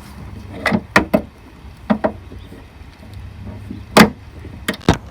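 BMW E36 trunk lid being worked to test its fit after realignment: a run of sharp clicks and knocks from the lid and its latch, the loudest about four seconds in.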